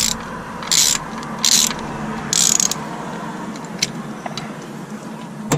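Socket ratchet clicking in three short bursts of rapid ratcheting, backing out a loosened spark plug with a 5/8 spark plug socket, with a couple of single clicks around them.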